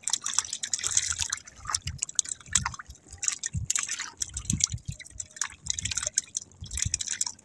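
Seawater splashing and dripping at the side of a wooden outrigger boat as a fishing handline with a hooked fish is hauled up out of the water, with a few low knocks.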